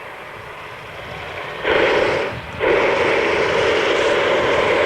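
Propane burner of a hot-air airship firing: a loud blast starts about a second and a half in, stops for a moment, then fires again and holds.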